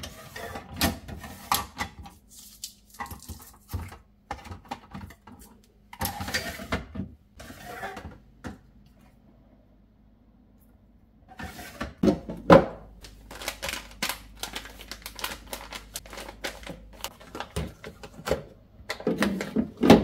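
Clear plastic under-shelf storage case being handled on a refrigerator shelf, with irregular plastic clicks, knocks and rattles against the shelf. There is a quiet pause in the middle, and the loudest knock comes about twelve seconds in.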